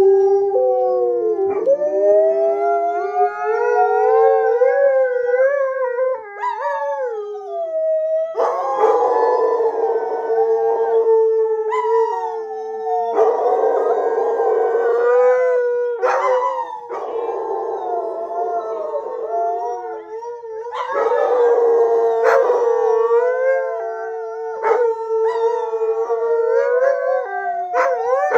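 Several Alaskan Malamutes howling together: long, overlapping howls that glide up and down in pitch, with rougher, noisier stretches in the middle.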